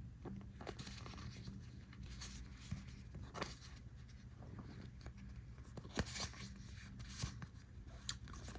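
Trading cards being handled and flipped through: faint scraping and rustling with light taps, a few louder about halfway and towards the end, over a low steady hum.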